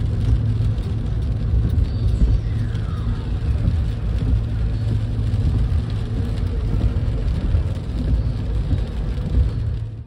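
Car driving on a wet road, heard from inside the cabin: a steady low rumble of engine and tyres with road hiss.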